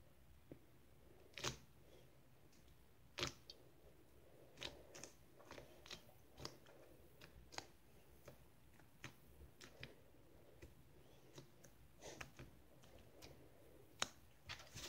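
Faint, irregular pops and clicks of butter slime being pressed flat and poked with fingertips on a tabletop, roughly one every second, a few of them louder.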